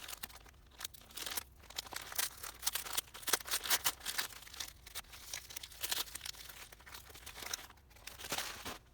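Packaging being crinkled and torn by hand in a series of irregular rustles and crackles, as a model train car is unwrapped.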